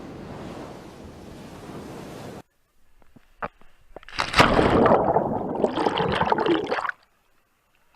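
Steady rush of waterfall water and wind that cuts off suddenly about two and a half seconds in. After a few faint knocks comes a loud burst of rushing, splashing water lasting about three seconds, which stops abruptly.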